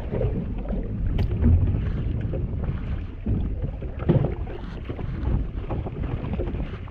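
Wind buffeting the microphone aboard a boat at sea, an uneven low rumble, with a couple of short knocks about a second and about four seconds in.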